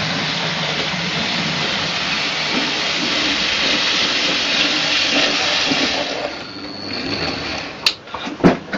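N gauge model locomotive running on its track: a steady whirring rush that dies away about six seconds in, followed by a few sharp clicks near the end.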